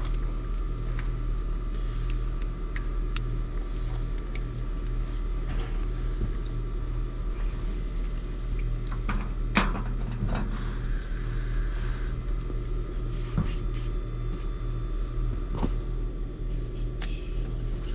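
A steady low mechanical hum, with a few light clicks and taps scattered over it.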